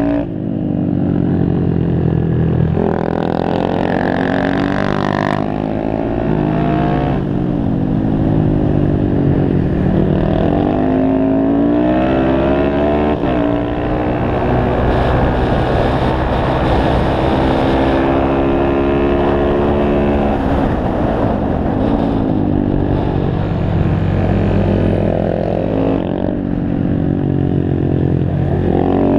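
Honda Grom's small single-cylinder engine heard from on board at riding speed, revs repeatedly climbing and dropping back as the bike is ridden through corners and gears.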